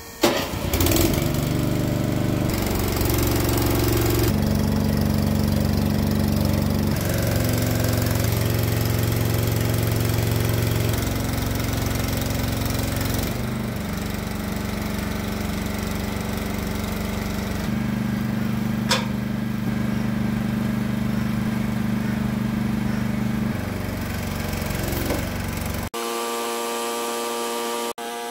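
Small engine of a trailer-mounted boom lift starting and then running steadily. Its speed steps up and down several times as the boom is worked. Near the end it cuts off suddenly and a steady hum takes over.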